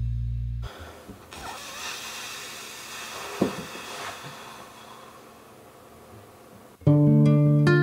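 A held chord from a band track ends abruptly under a second in. Several seconds of faint hiss follow, with one brief sound that slides up and down in pitch near the middle. Near the end a guitar starts playing the next song.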